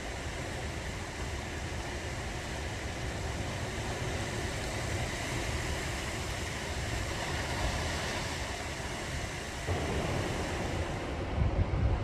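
Sea waves washing on the shore, a steady rush of surf, with wind rumbling on the microphone in gusts near the end.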